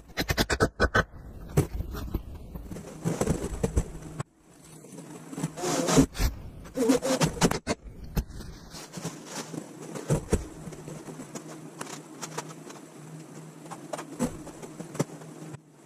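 Wooden boards and bar clamps handled on a workbench: a quick run of clicks in the first second, then scattered knocks and scrapes, over a steady low hum.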